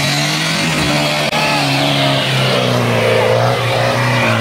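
Off-road jeep's engine running under load at fairly steady revs as it crawls up a steep dirt slope.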